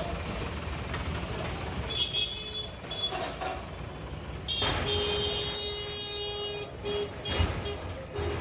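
Low rumble of vehicle engines with a vehicle horn honking: a short honk about two seconds in, one long steady honk about halfway through, and shorter honks near the end.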